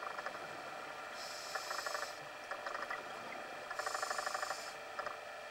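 Scuba diver breathing underwater through a regulator. A hiss comes twice, each lasting about a second, and short runs of rapid bubbling crackle come in between and alongside.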